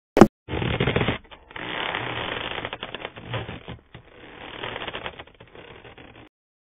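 A sharp click, then irregular crackling and clicking with short gaps for about six seconds, stopping suddenly.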